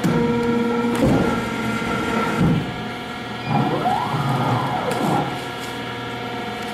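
A 35-ton CNC beam press running with a steady hum, a knock about a second in, and a motor whine that rises and falls in pitch twice, each time lasting about a second and a half.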